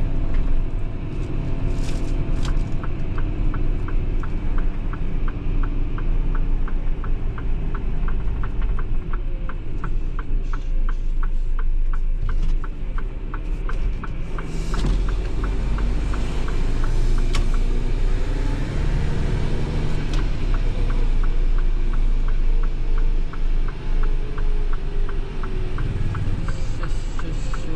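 In-cab sound of a Mitsubishi Fuso Super Great heavy truck on the move: a steady engine and road rumble. Over it runs an even ticking like a turn-signal indicator; it stops about 14 seconds in and starts again about 20 seconds in.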